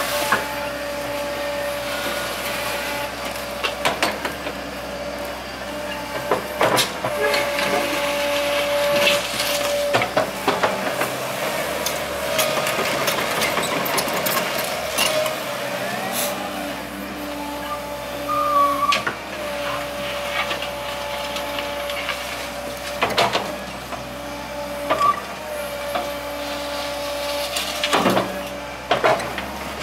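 Komatsu PC120 hydraulic excavator running steadily with a constant engine tone while its bucket digs into soft, sandy topsoil, with several sharp clanks and knocks from the bucket and arm as it works.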